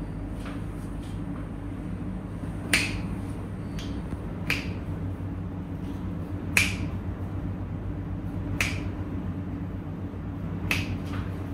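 Five sharp snaps about two seconds apart, with a few fainter clicks between them, over a steady low hum.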